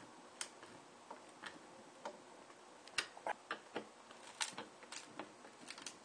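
Irregular light clicks and ticks of a hand screwdriver driving a screw through a plastic fan-mounting tab into plywood. The clicks are sharpest about three seconds in.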